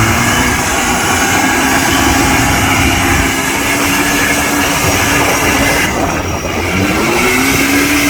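Off-road 4x4 vehicle's engine running under load over dense noise. Its pitch holds steady, then climbs as the engine revs up again about two-thirds of the way through.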